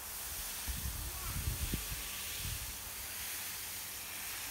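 Fine spray of water from a garden watering nozzle hissing steadily onto the potting soil and leaves of a planter. A few low bumps sound in the first two seconds.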